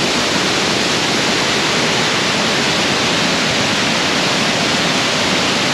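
Waterfall running full with rainy-season water: a loud, steady rush of falling water.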